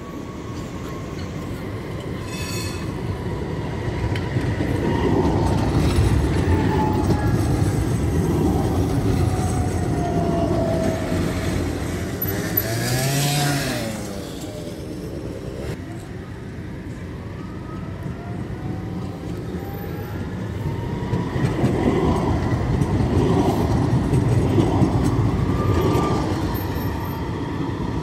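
Tram running on its rails: a rumble that swells twice, with whining tones gliding up and down in pitch.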